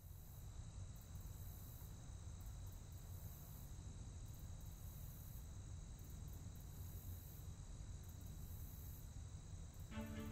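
Faint outdoor ambience: a steady low rumble under a thin, steady high-pitched whine and hiss. Music begins just before the end.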